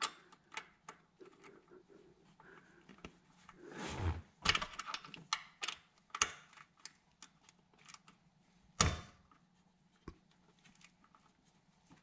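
Hand tools clicking and clinking against metal as the power steering hose fittings on the pump are tightened, in short irregular runs, with one louder knock about nine seconds in.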